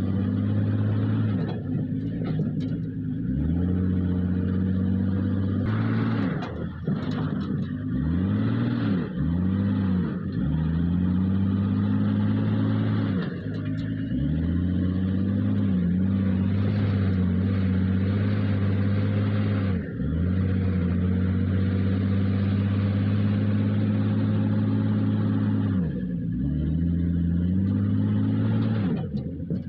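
Diesel engine of an earthmoving machine running hard, its pitch dipping and climbing back again and again as it takes on load and sheds it.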